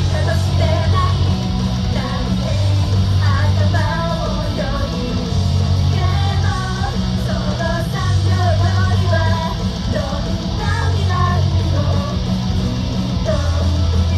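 Live pop-rock song by a girls' idol group: loud music with a heavy pulsing bass line and female voices singing.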